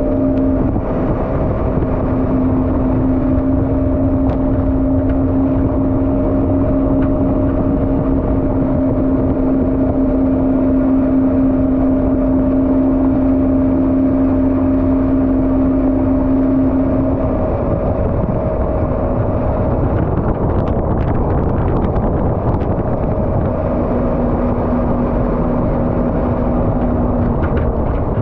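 Jet boat engine running at steady speed under the rush of water and wind. Its hum drops back about two-thirds of the way through and picks up again a few seconds before the end.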